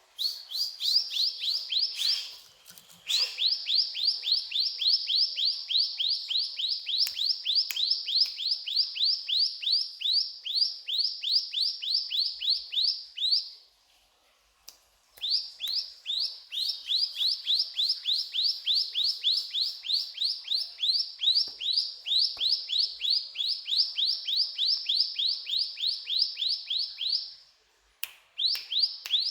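Ciblek gunung, a prinia, singing long runs of rapid, repeated downward-slurred notes, about four a second, with a break of a second or two about halfway and another near the end.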